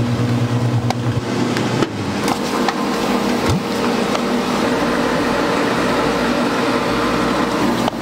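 Steady electric machine hum of running kitchen equipment, with a few light clicks and knocks; the deepest hum drops away about two seconds in.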